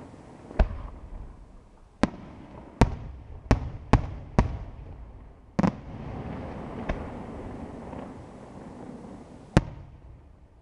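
Aerial firework shells going off in the night sky: a run of sharp bangs, most bunched together in the first half and one more loud bang near the end, with a low rolling echo rumbling between them.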